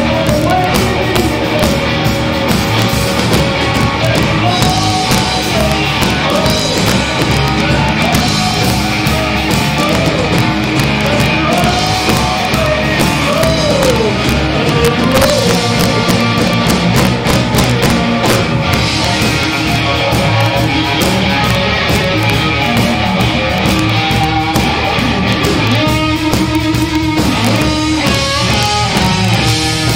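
Blues-rock trio playing loudly: electric guitar, electric bass and drum kit.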